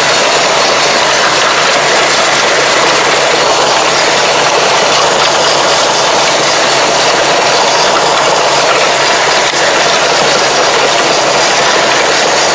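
Tractor running steadily while pulling a ridge-forming, mulch-film-laying implement across the field: a loud, even mechanical noise with a low engine hum beneath it and no pauses.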